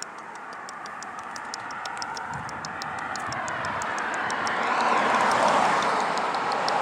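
A vehicle approaching on the road, its tyre and engine noise swelling steadily and loudest near the end as it passes close by. A faint, fast high ticking runs behind it.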